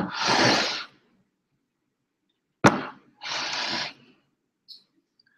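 A man breathing out hard twice, each long breathy exhale coming just after a sharp tap, as he recovers after forcing down a pound of raw broccoli.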